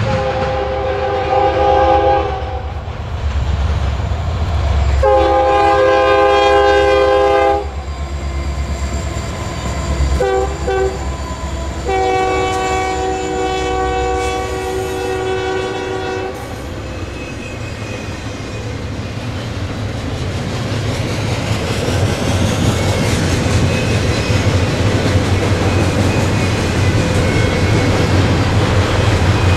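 Freight locomotive's multi-chime air horn sounding two long blasts, a short one and a long one, the standard grade-crossing warning pattern, over the low rumble of a passing double-stack container train. After the horn stops, the steel wheels' clickety-clack over rail joints builds toward the end.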